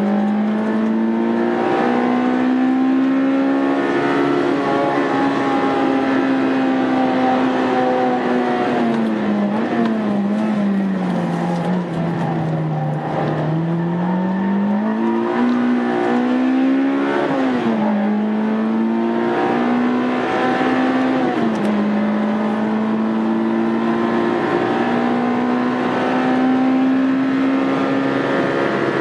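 Honda Integra Type R's four-cylinder engine running hard on a circuit lap. Its pitch climbs and holds, sinks slowly to its lowest about twelve seconds in, then rises again, with brief drops in pitch twice later on.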